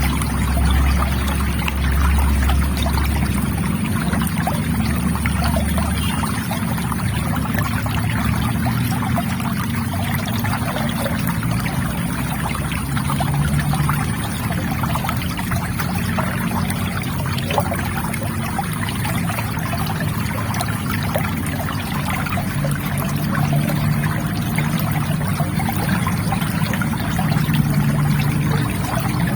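River water trickling and flowing steadily.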